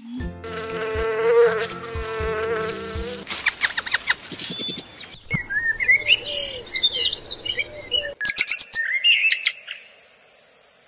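A buzzing insect for about three seconds, then a run of rapid clicks and high chirps, like birds calling. It goes quiet near the end.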